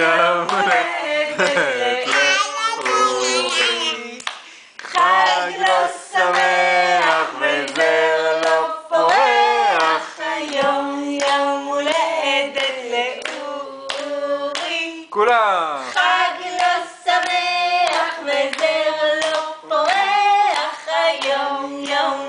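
A small group of people singing a birthday song and clapping along in time.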